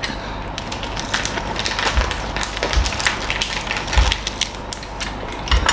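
Crunching and chewing of crispy bánh xèo (Vietnamese rice-flour crepe) wrapped in lettuce leaves, a run of small crackles with a few dull low thumps.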